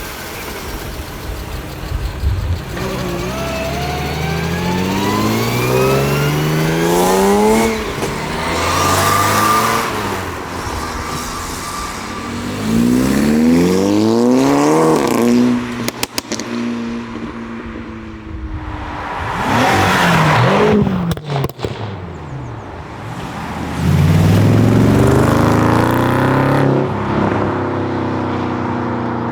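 Performance car engines accelerating hard, several runs one after another, the engine note climbing through the gears and dropping back at each shift. About twenty seconds in, one car rushes by with its pitch falling as it passes.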